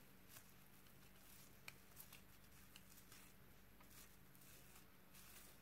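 Near silence with faint, scattered small ticks and rustles of soaked vegetarian meat being torn into shreds by hand against a knife blade.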